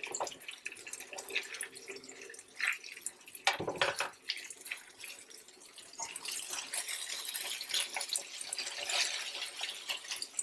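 Chopped ground beef and cheese sizzling on a flat electric griddle, with a spatula scraping and knocking against the griddle surface now and then; the sizzle thickens into a steady hiss in the second half.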